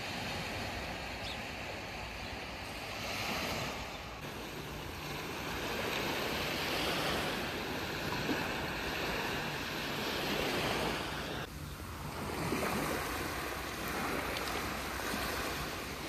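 Small sea waves washing onto a sandy beach, the surf swelling and fading every few seconds.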